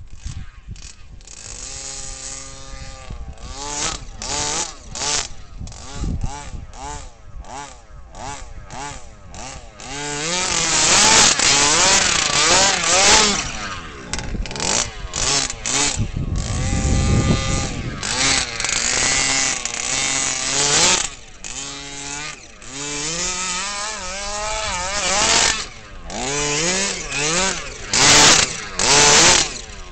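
23cc two-stroke gas engine of an RC bigfoot monster truck with a DDM expansion pipe, revving up and down in repeated throttle bursts, with several long high-rev runs after about a third of the way in. The owner says the engine still needs some tuning.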